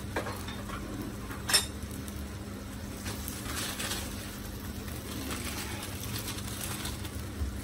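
Steady low kitchen hum, with a single sharp click about a second and a half in and faint rustling around four seconds in.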